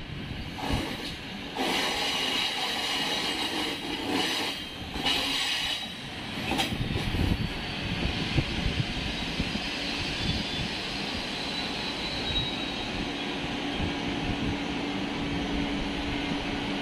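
Trenitalia regional passenger train, driving trailer leading, rolling slowly past alongside the platform as it comes into the station. There are a few brief high-pitched squeals in the first several seconds, and a steady low hum joins the rumble of the wheels near the end.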